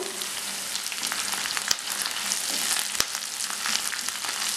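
Garlic, ginger, green chillies and freshly added curry leaves sizzling and crackling in hot sesame oil in a non-stick pan, stirred with a spatula. A steady frying hiss full of fine crackles, with a few sharper clicks.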